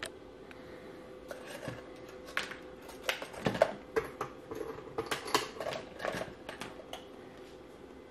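Handling noise: irregular clicks, knocks and rustles as the homemade wireless firing remote is picked up off a cluttered workbench, bunched in the middle few seconds, over a faint steady hum.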